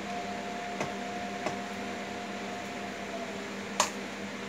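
Plastic clicks as the external ink tank unit of an Epson L565 ink-tank printer is handled and pressed against the printer's side: two light clicks, then a sharp click near the end. A steady hum runs underneath.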